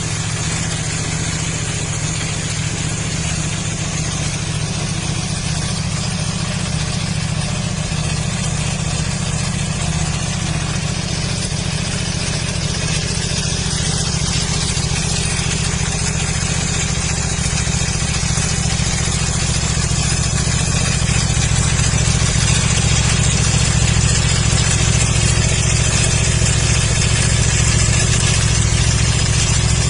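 KTM 1190 RC8's V-twin engine idling steadily through its exhaust, getting a little louder in the second half.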